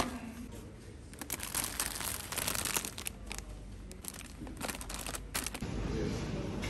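Snack bags (chips and popcorn) crinkling in irregular bursts as they are handled and put into a plastic shopping basket, after a sharp knock at the very start.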